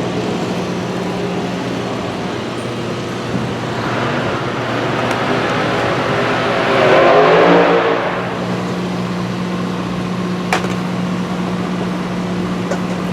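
Steady low engine hum from a nearby running machine, with a vehicle driving past that swells and fades, loudest about seven seconds in. A single sharp click comes near the end.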